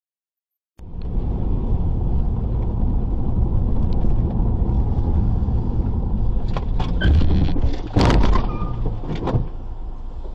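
Dashcam audio inside a moving car: steady engine and road rumble that starts abruptly just under a second in, then a cluster of sharp knocks with the loudest crash about eight seconds in, as a white car collides with the camera car.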